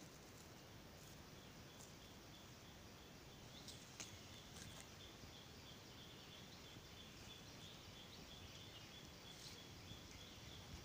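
Quiet outdoor garden ambience: a faint steady hiss, joined from about a third of the way in by a faint high-pitched chirring that keeps breaking off and starting again. A soft click about four seconds in.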